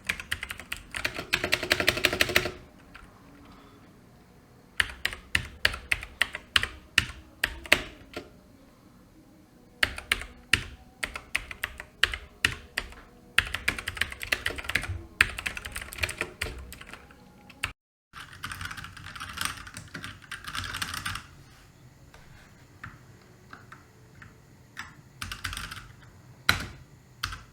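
Typing on the Cosmic Byte Artemis CB-GK-23 mechanical keyboard, whose blue switches give a sharp click on every key press. Bursts of fast typing alternate with slower single key presses, and the sound breaks off for a moment about two-thirds of the way through.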